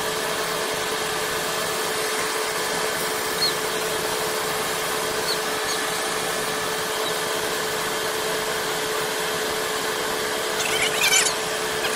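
Steady hiss with a faint constant hum, broken by a few brief high chirps and a short cluster of them near the end.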